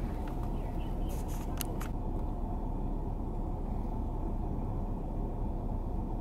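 Steady low rumble of a vehicle's engine running, with a few faint clicks about a second in.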